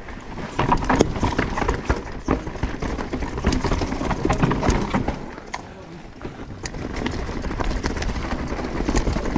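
Mountain bike clattering down rocky singletrack: tyres knocking over rocks and the bike rattling in quick, irregular clacks, easing off briefly a little past the middle.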